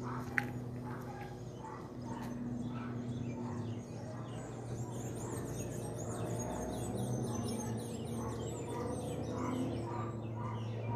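Many birds chirping in a busy chorus, growing denser after about four seconds, over a steady low hum. A single sharp click sounds just after the start.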